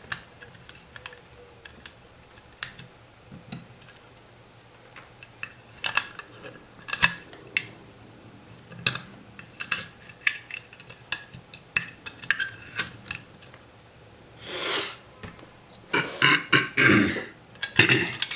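Scattered light clicks and taps of small parts and tools being handled on a workbench. Near the end, a person coughs and clears their throat several times in short loud bursts.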